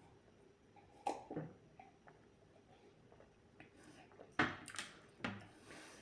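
Close-miked eating sounds of a person chewing a burger: a few short, wet mouth clicks and squishes, in one cluster about a second in and another from about four and a half to five and a half seconds in.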